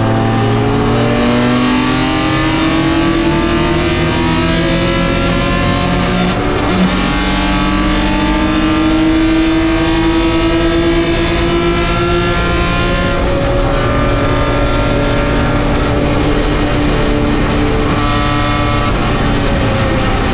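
Race car engine heard from inside the cockpit at speed, over road and wind noise. Its pitch climbs slowly under acceleration and changes about thirteen seconds in.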